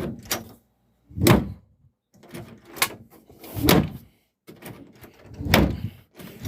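A wooden interior door being swung and pushed shut repeatedly, giving a series of about six or seven uneven thuds and knocks against the frame.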